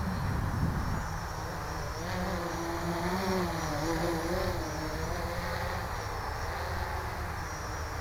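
Armattan CNC 355 quadcopter in flight: its electric motors and propellers buzz, the pitch wavering up and down as the throttle changes, over a steady low rumble.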